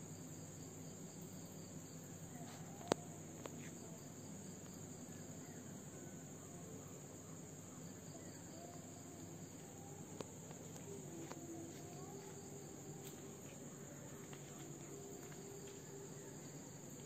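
Steady chorus of crickets chirping, a continuous high shimmer, broken by a sharp click about three seconds in and another about ten seconds in.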